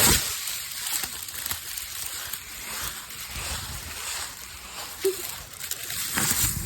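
Dry leaves rustling and crunching as a big pile is scooped up and dropped, loudest at the very start.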